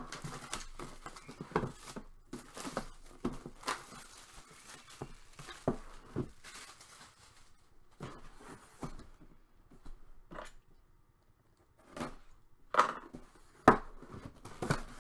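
Hands handling and opening a cardboard box: irregular scraping, taps and tearing of cardboard and its seal. After a short quiet pause come two sharp knocks near the end.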